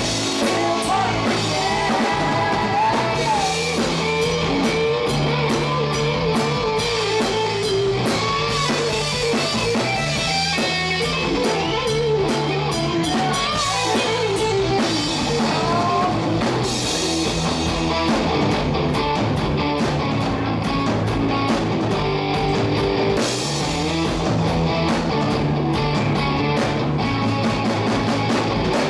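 Live rock band playing at full volume: electric guitars, electric bass and a drum kit driving a steady beat under a wavering melody line.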